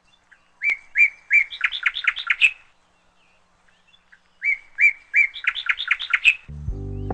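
A small wild songbird singing two phrases, each a few evenly spaced chirps followed by a quicker run of notes. Music starts near the end.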